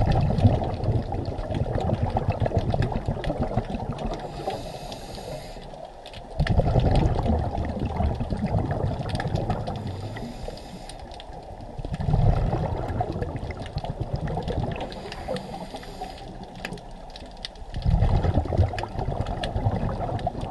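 Scuba diver breathing through a regulator, heard underwater: a rush of exhaled bubbles about every six seconds, four times, with a fainter hiss between them.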